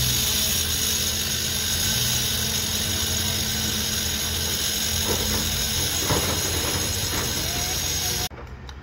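Electric power tool working on a concrete pile head: a loud, steady hiss over a low hum. It stops abruptly near the end.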